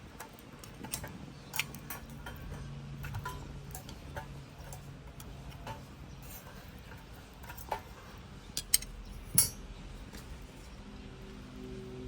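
Small wood fire crackling in a camp stove: irregular light clicks with a few sharper snaps, the loudest about nine seconds in.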